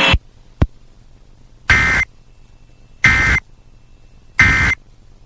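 Emergency Alert System end-of-message signal: three identical short bursts of SAME digital data tones, each about a third of a second long and spaced a little over a second apart, marking the end of the alert. A single sharp click comes just before the first burst.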